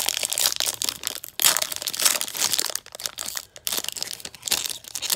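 Foil trading-card pack wrapper crinkling and tearing as it is pulled open by hand: a run of irregular crackles, loudest about one and a half to two seconds in.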